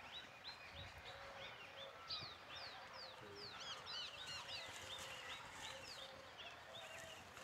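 Small birds chirping: a quick run of short, high chirps, a few each second, with several birds overlapping and busiest around the middle.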